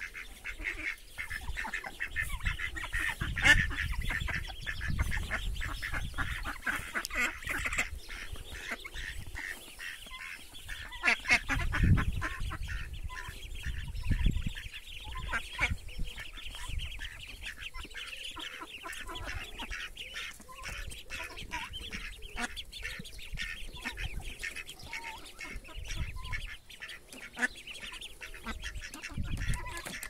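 A group of young ducks and geese peeping and calling continuously, a busy chatter with many short quick calls. Low rumbling comes and goes, loudest near the middle.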